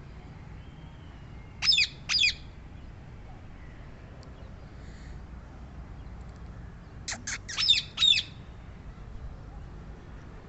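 Rose-ringed parakeet giving short, high-pitched calls: two about two seconds in, then a quick run of four or five around seven to eight seconds in.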